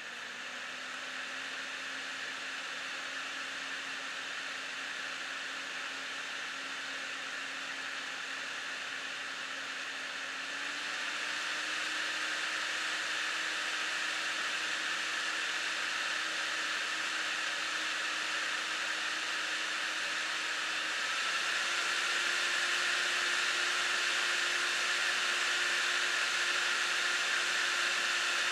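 Galaxy GeForce GTX 260 graphics card's original cooling fan whirring: a steady rush of air with a low hum tone. The fan speeds up in steps, near the start, about ten seconds in and about twenty-one seconds in, getting louder and higher in pitch each time.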